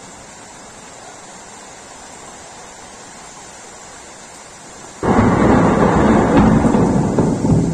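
Steady hiss of rain, then about five seconds in a sudden loud thunderclap from close lightning. It rumbles on for a couple of seconds and begins to ease near the end.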